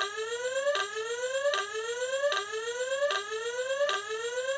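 DX Hebot toy robot's speaker playing a buzzy electronic tone that climbs over most of a second, drops back and climbs again, about six times in a row. It cuts off near the end.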